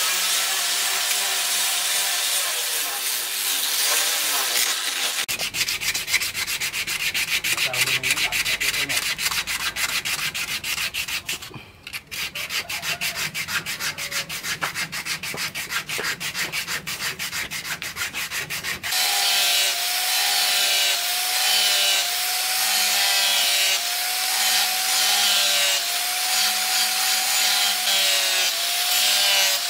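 Hand-held angle grinder with a sanding disc whining as it shapes a cleaver's wooden handle. After about five seconds the motor stops and the handle is hand-sanded in quick back-and-forth strokes. About nineteen seconds in the grinder starts again, grinding the cleaver's steel blade.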